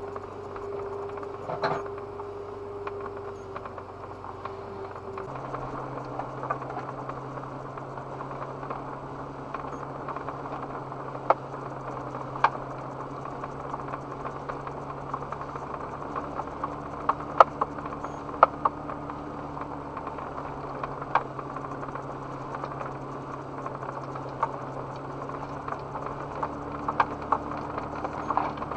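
Toyota Land Cruiser FZJ80's straight-six engine heard from inside the cabin, idling and then, about five seconds in, settling into a different steady hum as the truck pulls away at walking pace. Sharp clicks and rattles come through as it moves over the rough trail, the loudest ones in the middle.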